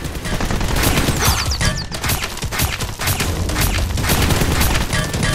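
Rapid gunfire from toy blasters in a shootout: a fast run of shots, several a second.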